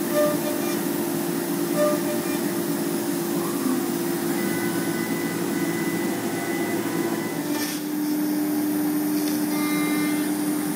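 MultiCam CNC router spindle running with a steady whine as its bit cuts baltic birch plywood, over a rushing cutting noise. About eight seconds in there is a brief break, and the whine then carries on slightly lower in pitch.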